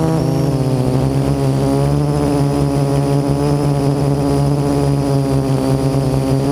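Parrot AR.Drone quadcopter's electric motors and propellers buzzing steadily in flight, heard close up from the camera mounted on the drone, the pitch shifting now and then.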